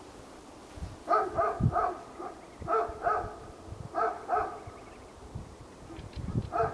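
A dog barking in short groups of two or three barks, with pauses of about a second between groups.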